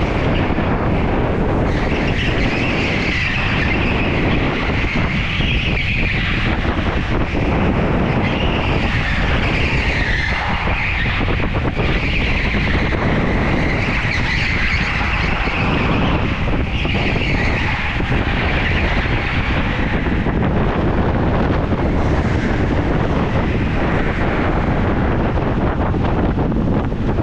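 A go-kart running flat out round an indoor track, heard from on board: a steady engine rush with wind buffeting the microphone. Over it the tyres squeal on the smooth concrete through the corners, in repeated wavering stretches of a few seconds each that die away in the last few seconds.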